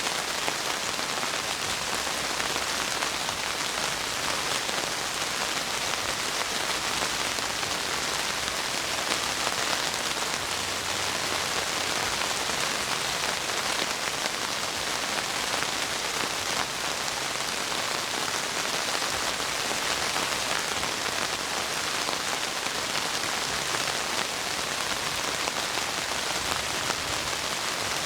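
Heavy rain falling steadily, a dense, even hiss of many drops.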